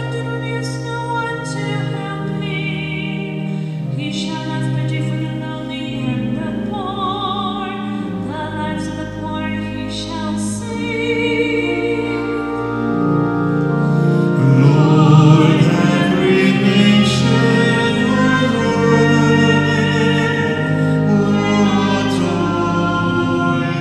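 A singer with vibrato, joined by voices, sings a slow sacred chant over held organ-like chords, the responsorial psalm sung before the second reading. The music swells to its loudest about midway through.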